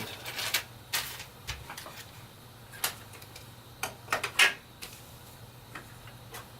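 Scattered clicks and taps of PC case hardware being handled, a drive tray being hooked back into the case. The loudest knock comes a little after four seconds in.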